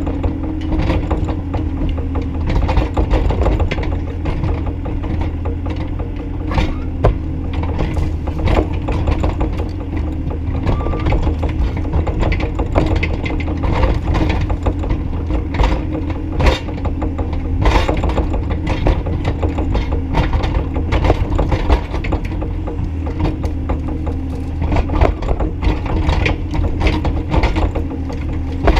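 Bobcat E35i compact excavator's diesel engine running steadily under hydraulic work, with frequent irregular clanks and knocks from the machine as it digs.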